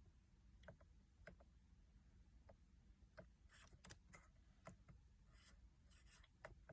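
Near silence with faint, irregular clicks of steering-wheel menu buttons being pressed to scroll through the dash display, a few in quick succession about halfway through.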